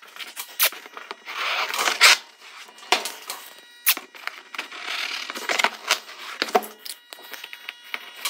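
Felt-tip marker drawing quick strokes across a cardboard grille mock-up: a run of scratchy strokes, each under a second, with a few sharp clicks between them.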